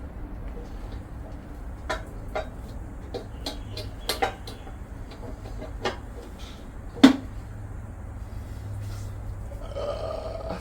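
Scattered clicks and knocks of metal parts as the CVT cover is worked back onto a scooter's engine case, with the loudest knock about seven seconds in, over a low steady hum.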